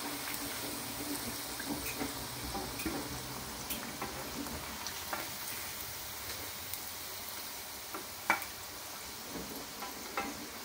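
Taro root pieces sizzling in hot oil in a wok at the end of their first half-fry, with scattered crackles and the clicks of a slotted spatula against the pan as the pieces are lifted out; one sharper knock comes about eight seconds in.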